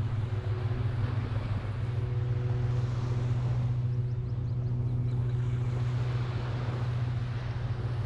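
An engine or motor running steadily, a low hum at constant pitch, over a constant hiss of outdoor noise.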